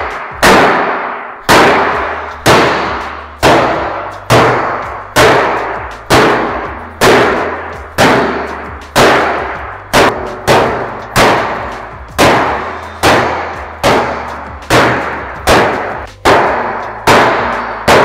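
Soft-faced hammer striking the sheet-steel hood of a 1940 Willys to knock a large dent back out. Each blow lands with a clang and a short ring from the panel, about one a second, coming a little quicker in the second half.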